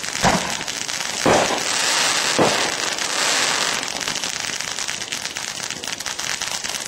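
Aerial fireworks going off: three sharp bangs in the first two and a half seconds, followed by a dense spray of crackles that thins out after about four seconds.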